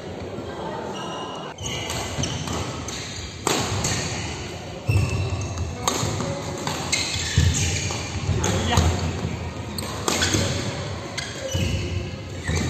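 Badminton rally: sharp cracks of rackets striking the shuttlecock every one to two seconds, including a jump smash about six seconds in, echoing in a large sports hall, with voices in the background.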